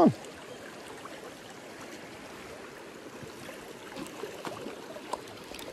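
River water running steadily.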